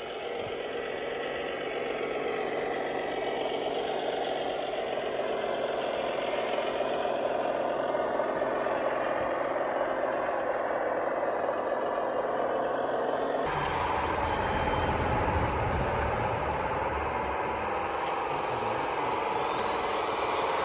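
Radio-controlled model construction machines running: a steady motor and engine-type hum. The sound changes abruptly about 13 seconds in to a louder, deeper running sound.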